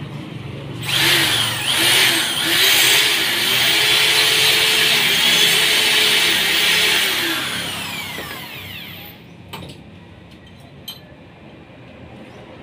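Handheld corded electric drill running for about eight seconds, a harsh hiss over its motor whine. Its pitch dips briefly about two seconds in, and near the end it spins down with a falling whine, followed by a few faint clicks.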